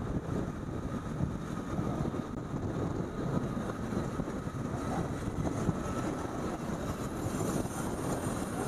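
Motorcycle riding along: a steady mix of engine, road and traffic noise with wind on the microphone.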